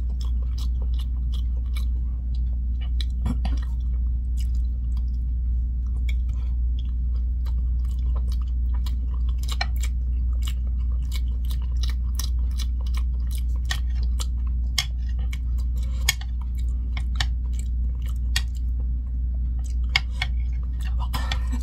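A person chewing soft, chewy tteokbokki rice cakes in spicy sauce, with many short, sharp mouth clicks and smacks scattered throughout, over a steady low hum.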